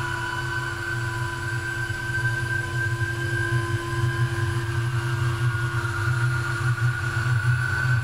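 Steady low droning hum with several held higher tones above it, unbroken throughout and growing a little louder after about four seconds.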